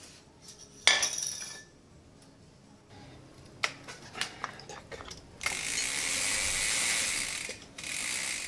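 Metal tools clicking and clinking on a mountain bike's crank and bottom bracket, with a loud metallic clatter about a second in. From about five and a half seconds, a long steady hiss of aerosol spray, broken briefly near the end.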